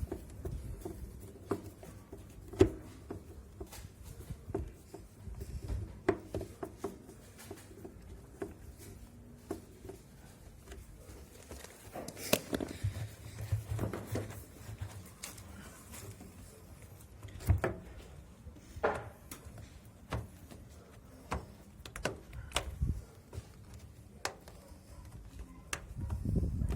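Scattered knocks, taps and clicks of hands working on a washing machine's metal and plastic panels and parts, at irregular intervals; the sharpest knock comes a few seconds in.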